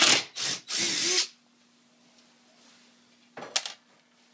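Power drill driving in three short bursts, backing a wood screw out of the glued boards, followed by a brief clatter about three and a half seconds in.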